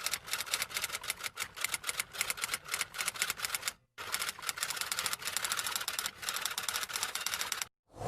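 Typewriter typing sound effect: a fast, uneven run of sharp key clicks that stops briefly about four seconds in, then starts again.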